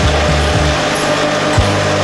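Automatic rotary pick-and-place PET bottle cap press machine running, a steady mechanical whir and hiss with a low thump near the end. Background music with a low bass line plays under it.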